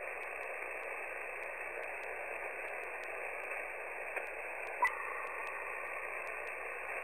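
Steady hiss of shortwave band noise heard through a single-sideband receiver on the 20-metre amateur band, with no station transmitting. There is one brief pop about five seconds in.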